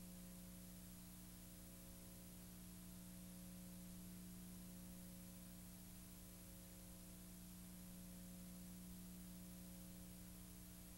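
Near silence: a steady low hum with faint hiss and no other sound.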